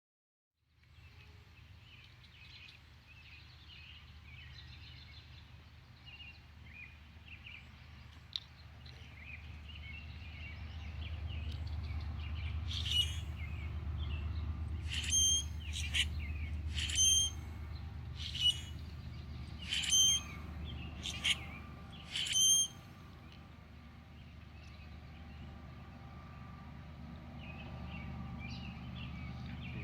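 Common grackles calling: a flock's steady chatter throughout, with about eight loud, sharp calls close together in the middle stretch, over a steady low rumble.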